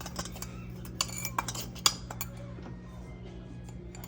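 A spoon clinking against a small bowl several times in quick, sharp taps while salt is added to minced garlic for a marinade.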